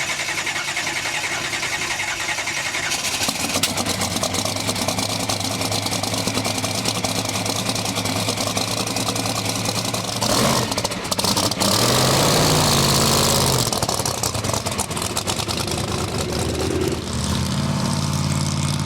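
Car engine running steadily, getting louder about ten seconds in with a rising rev a couple of seconds later, then settling into a lower steady drone near the end.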